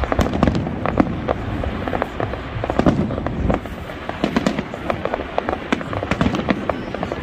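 Fireworks display: a rapid, irregular string of bangs and crackles as shells burst overhead, over a steady rumble.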